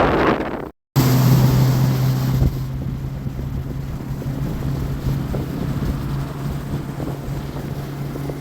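Motorboat engine running at a steady pitch, with wind buffeting the microphone. A short loud burst of wind noise cuts off abruptly just under a second in.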